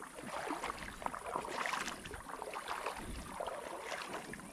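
Shallow river flowing and gurgling, with many small splashes and lapping of water.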